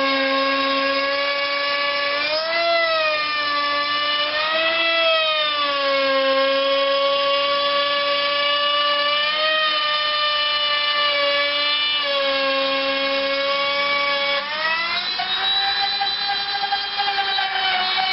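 Electric router running steadily with a high whine while routing a resonator guitar body, its pitch wavering up and down a few times as the load changes and shifting higher near the end.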